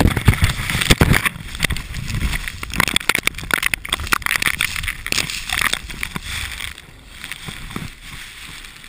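A skier tumbling down a steep powder slope in a crash: snow rushing and scraping over the helmet camera's housing, with many knocks and thuds. It is loudest in the first second and dies away as the fall slows and stops.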